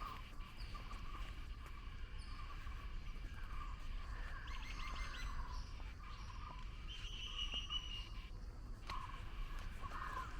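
Several birds chirping and calling at once, with a rapid trill about halfway through and a short, steady, higher-pitched whistle a little later, over a constant low outdoor rumble.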